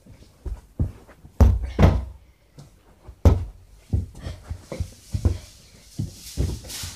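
A rubber ball kicked around a small carpeted room, with bare feet thudding as the players run: about ten irregular dull thumps, the loudest about a second and a half and three seconds in.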